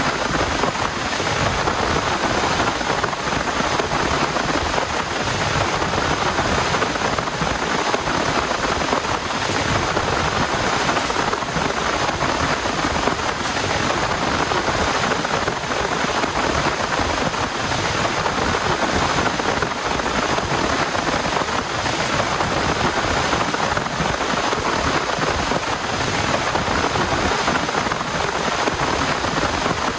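Heavy rain falling steadily and densely, with no let-up.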